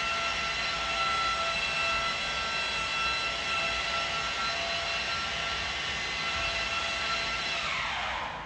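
Electric rotary polisher buffing a scratch out of glass, its motor running with a steady high whine, then switched off near the end and winding down in a falling pitch.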